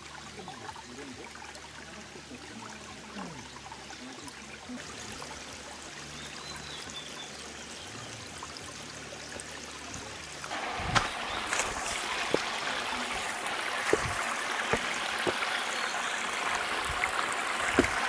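A shallow, rocky mountain stream trickling over stones. It gets louder about ten seconds in, and a few sharp knocks come in the second half.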